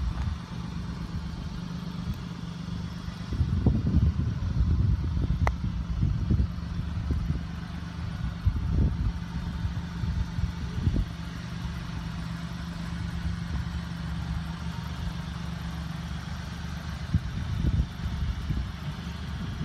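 Mitsubishi Minicab kei truck's small engine idling steadily, with irregular low rumbles over it, the strongest a few seconds in, and a single sharp click about five and a half seconds in.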